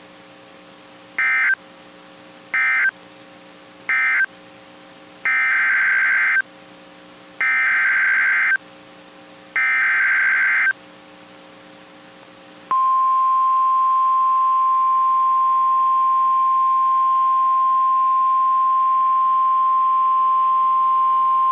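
Emergency Alert System data tones: three short bursts of SAME data (the end-of-message code), then three longer bursts of SAME header data for the next alert. About 12.7 seconds in, the single steady 1050 Hz National Weather Service warning alarm tone begins and holds for about nine seconds.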